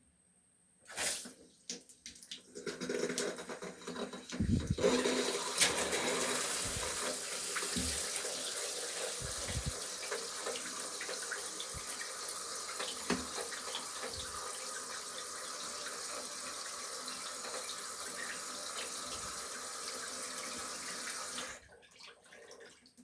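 Shower running through a mixer valve fitted with a new cartridge. After a click and a few knocks, the water comes on, builds over a couple of seconds and runs steadily, then is shut off shortly before the end.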